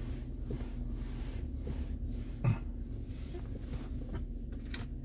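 Steady low rumble with a single short cough about two and a half seconds in.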